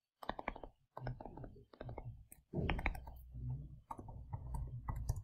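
Irregular light clicks and taps of a stylus writing on a tablet screen, over soft handling noise.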